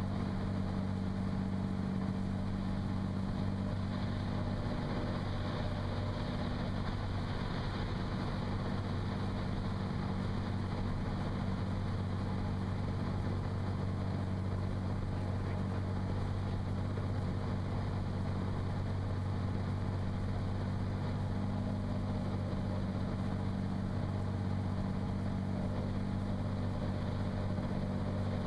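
Cirrus SR22's 310-horsepower six-cylinder piston engine and propeller running steadily in flight, a constant deep drone heard inside the cabin.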